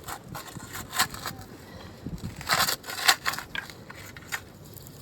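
Hand digging tools scraping and crunching into soil, a few sharp strokes about a second apart, as grass is lifted and dirt is worked.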